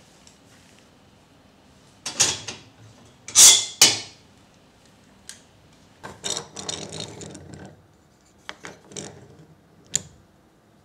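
Wood and a metal screw-type hold-down clamp being handled on a solid-wood workbench top. There are a few loud knocks and scrapes early on, then a board slides across the bench for about a second and a half. Near the end come small clicks and a sharp tap as the clamp is set down on a wooden block.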